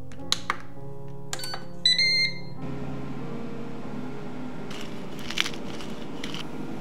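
Air fryer control panel: a few button clicks, then an electronic beep lasting under a second as the cooking program is started. A few seconds later, a metal spoon scrapes briefly in a small ceramic bowl while dry powders are stirred.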